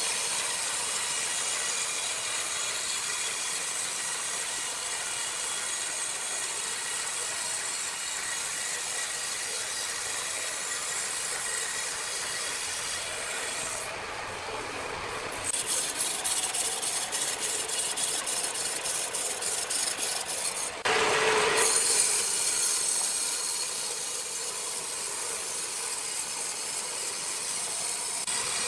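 Sawmill machinery running and a saw cutting through wood, with a steady rasping noise. About halfway through, rapid regular ticking comes in for several seconds, followed by a brief louder burst.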